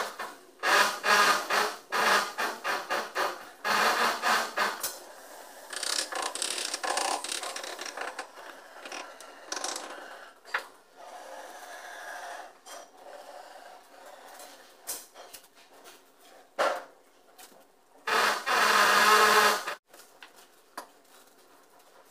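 Hand rubbing and scraping strokes on the concrete edge of a basin being built: quick runs of strokes, about three a second, in the first few seconds, quieter scattered scraping in the middle, and a loud, nearly continuous run of scraping near the end.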